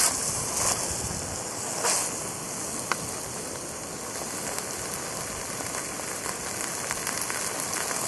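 Jetboil gas canister stove burning under the fry pan with a steady hiss and the food in the pan sizzling, with a single sharp click about three seconds in.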